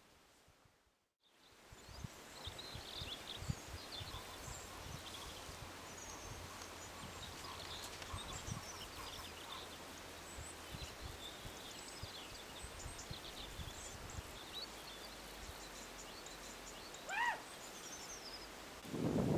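Open-field ambience: small birds chirping over a low rumble with scattered soft thumps and rustles, starting after a second of near silence. Near the end there is one louder call that rises and falls in pitch.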